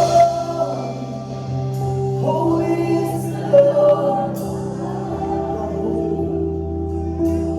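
Live church worship music: a band playing held chords and a bass line under singing voices, with a few brief cymbal-like splashes.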